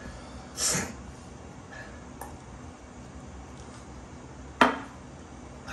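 A steel drinking tumbler knocks once, sharply, against a table about four and a half seconds in, with a brief ring. Under a second in there is a short hiss.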